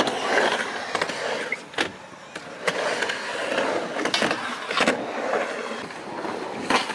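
Skateboard wheels rolling on a ramp, with several sharp clacks of the board hitting coping and landing.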